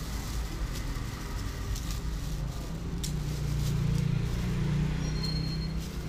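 Low rumble of a motor vehicle, growing louder through the middle and easing off near the end, with a plastic bag crinkling as a hand rummages in it.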